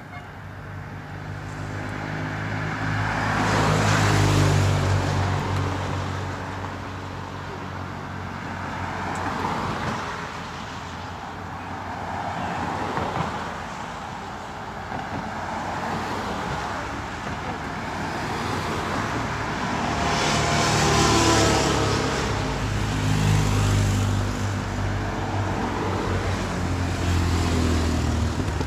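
Cars and SUVs driving past one after another, each one swelling and fading as it goes by, over a steady low engine hum. The loudest passes come about four seconds in and about twenty-one seconds in.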